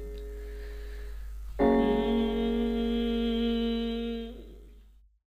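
Closing keyboard chords of a Hindi song. One held chord dies away, a new sustained chord comes in about a second and a half in, and it fades out to silence near the end.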